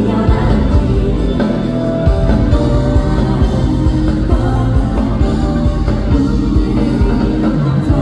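Amplified pop-rock song: a male voice singing over a band backing with a steady beat.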